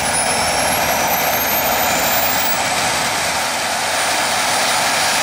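Mini jet turbine on a Traxxas X-Maxx RC truck running loud and steady: a rushing jet noise with a high whine that climbs slowly in pitch.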